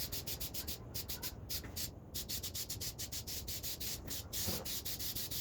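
Aerosol can of clear coat in use on a headlight: a fast, even string of short hissing pulses, several a second.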